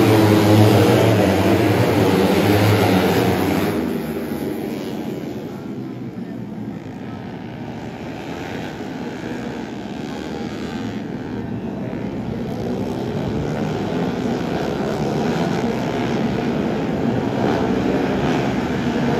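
A pack of 150cc four-stroke underbone racing motorcycles accelerating hard off the start line together, many engines blending into one dense, loud sound. It fades over the first several seconds, then slowly swells again as the field comes back around the circuit.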